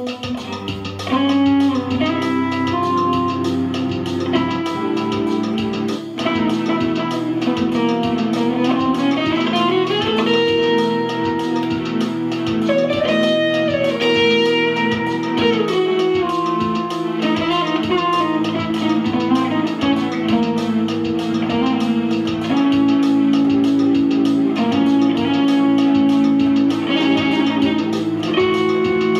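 Electric guitar played through a small practice amplifier, with some notes bending in pitch, over sustained chords from a Casio electronic keyboard.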